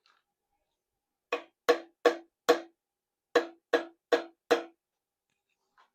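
Eight light metal taps on a connecting-rod bolt of a Honda K24 engine, in two quick runs of four, each with a short ring. The taps break the rod cap loose from the connecting rod.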